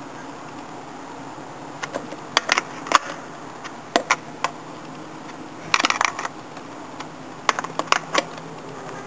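A series of sharp clicks and knocks in irregular clusters over a steady low hum.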